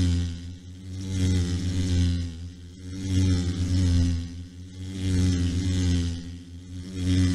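Low mechanical buzzing hum, the sound effect of a flying robot bee, swelling and fading in slow waves about every two seconds.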